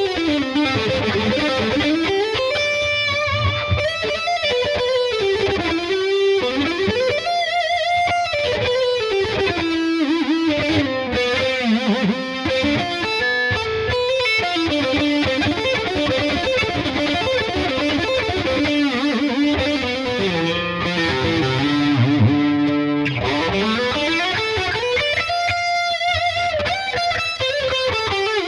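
Ibanez RG350DXZ electric guitar played with distortion: fast lead runs that climb and fall in pitch over and over.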